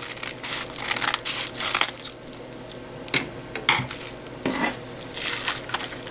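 Scissors cutting across a plastic mailing pouch with a dense crackle, then the plastic crinkling in several short bursts as the pouch is handled and pulled open.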